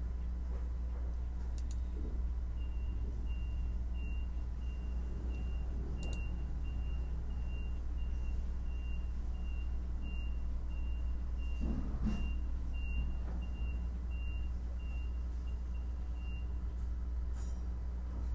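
A vehicle's reversing alarm beeping at an even pace of about two beeps a second, over a steady low hum. It starts a few seconds in and stops shortly before the end.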